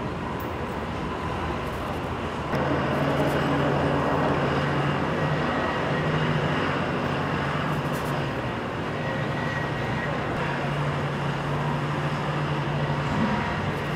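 Steady wind and machinery rumble aboard a ship at sea. About two and a half seconds in, it steps louder and a low, steady engine hum joins, faltering briefly now and then.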